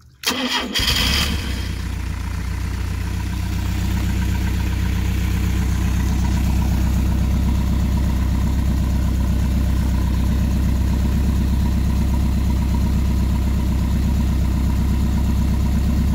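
Freshly rebuilt Mercruiser 170 3.7-litre four-cylinder marine engine starting: it catches a fraction of a second in, runs rough and loud for a second or so, then settles into a steady idle. The exhaust is quietened by a makeshift wooden muffler.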